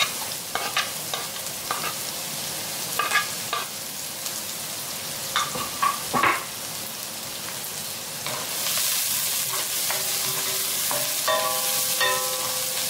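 Chopped onion, garlic and green chillies frying in hot oil in a stainless steel wok, a steady sizzle, with short clinks and scrapes of a spoon and spatula against the pan in the first half. The sizzle grows louder about two thirds of the way in.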